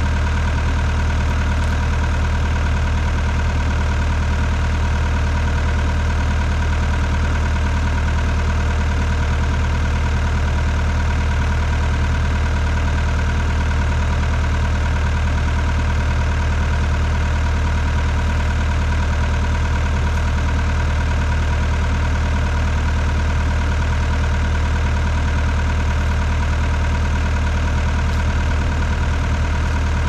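An engine idling steadily: an even, unchanging drone with a strong low hum and no change in speed.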